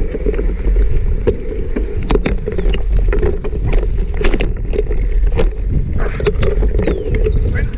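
Mountain bike ridden over a rough dirt trail, picked up by a camera mounted on the handlebar stem: a continuous low rumble of tyres and frame vibration, with frequent clicks and rattles from the bike.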